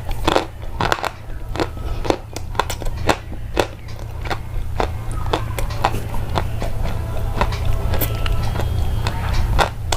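Crisp, irregular clicks and crunches, several a second, over a steady low hum.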